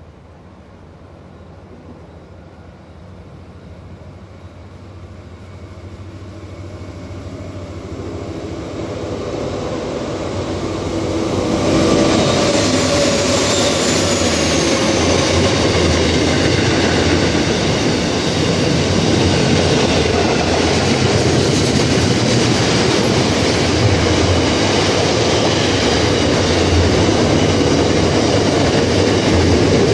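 Freight train led by two Aurizon LDP-class diesel locomotives approaching and passing. The sound grows steadily for about twelve seconds and peaks as the locomotives go by, with a brief falling whine. Then the steady noise of container wagons rolling past on the rails continues.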